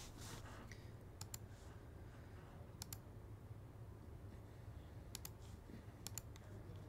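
Faint sharp clicks, mostly in close pairs, from fingers picking at the plastic shrink-wrap of a trading-card box, over a low steady hum.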